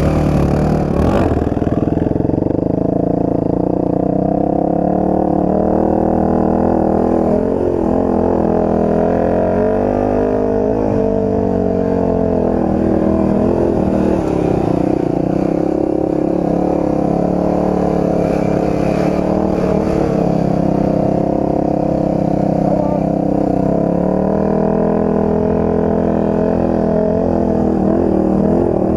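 Enduro dirt bike engine running hard throughout, its pitch rising and falling repeatedly as the throttle is worked, with brief drops a few times.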